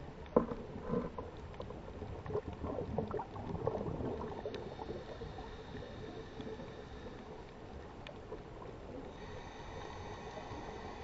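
Underwater sound: a sharp knock near the start, then several seconds of irregular bubbling and gurgling. From about nine seconds in, a steady high whine of a boat motor carries through the water.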